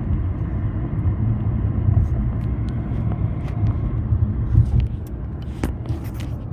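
Steady low rumble of a car driving along a road, heard from inside the car, with a few faint clicks near the end.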